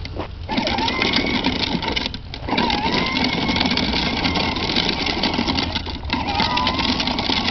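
The electric motor of a battery-powered ride-on toy quad whines as it drives, over the rumble of its plastic wheels on asphalt. The motor cuts out briefly twice, just after the start and about two seconds in, and each time its whine climbs back up as it gets going again.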